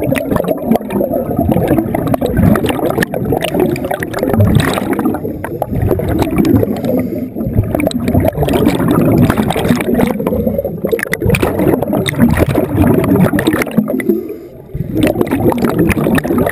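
Scuba exhaust bubbles rushing and gurgling past an underwater camera, loud and in surges every few seconds as the divers breathe out through their regulators.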